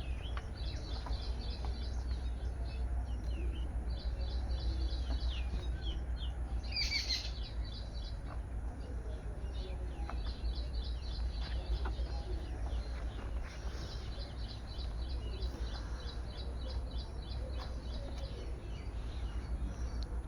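Small birds chirping in runs of quick repeated notes, with one louder call about seven seconds in, over a steady low rumble.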